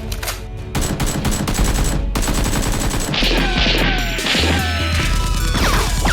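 Rapid bursts of gunfire sound effects over action music with a heavy bass, with falling whistling tones in the second half.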